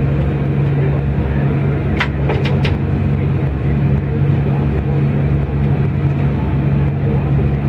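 Steady low engine rumble of a locomotive cab simulator's diesel sound, played through speakers while the controls are worked. A few short clicks come about two seconds in.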